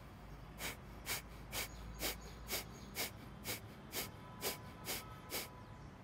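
A man's Kapalabhati breathing: a run of about eleven short, forceful exhalations through the nose, about two a second and evenly spaced. Each is a sharp puff of breath pushed out from the belly, with the in-breath left passive.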